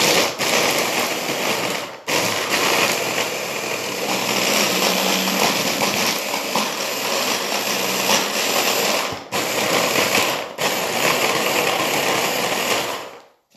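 Electric stick blender running on its mini-chopper bowl, chopping basil, pine nuts and garlic in olive oil into pesto. The motor drops out briefly three times, about two, nine and ten and a half seconds in, and stops near the end.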